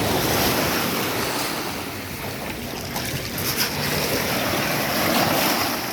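Sea surf washing onto the shore as a steady rush, swelling at the start and again near the end.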